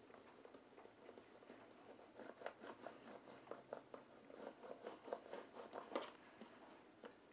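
Faint crackling and rubbing of an adhesive vinyl chassis protector being pressed down onto the plastic chassis with a hard plastic seam roller, in a quick run of small crackles from about two seconds in, the loudest crackle about six seconds in.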